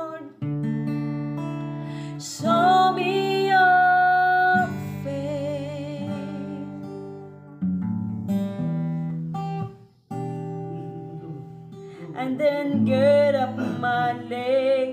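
Acoustic guitar strummed in slow chords while a woman sings long, held notes of a slow worship song, the sound dropping away briefly about ten seconds in.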